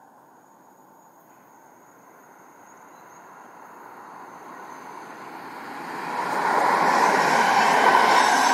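Passenger train headed by a Siemens Vectron electric locomotive approaching and passing. A faint rumble grows steadily louder, then about six seconds in it becomes a loud rush of wheels on rails as the locomotive and carriages go by.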